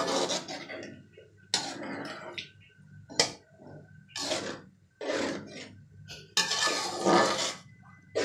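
Metal slotted spoon stirring and scraping through dal in a steel pan, in separate strokes of about half a second to a second, with one sharp clink of metal on metal about three seconds in.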